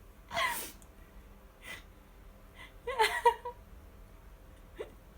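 Newborn baby sneezing: a short sneeze about half a second in, then the loudest sneeze about three seconds in, with small breaths between.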